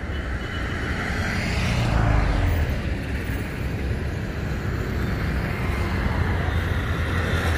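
Road traffic running by with a low rumble, swelling as a vehicle passes about two seconds in.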